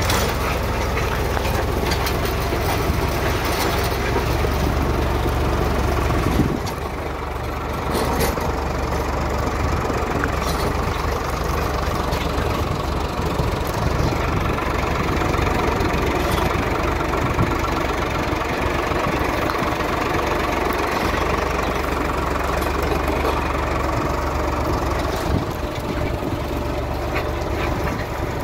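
Tractor diesel engine running steadily, with a short dip in its low rumble about six and a half seconds in.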